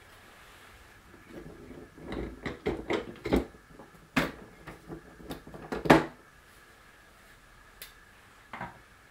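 Clicks and knocks of the Inspirograph's wooden pen arm and pen holder being lifted off the drawing machine's pivot pins, a busy cluster of knocks from about a second and a half in to about six seconds, the last the loudest, then a single soft knock near the end.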